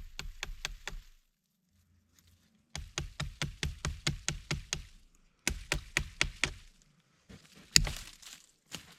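Small multi-tool survival hatchet chopping small limbs off a downed tree: rapid runs of light, sharp strikes, about five or six a second, in three bursts, then one harder blow near the end.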